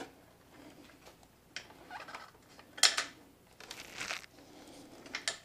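Hands handling wiring and small plastic parts in a motorcycle's under-seat bay: scattered rustles and light clicks, with one sharp click about three seconds in.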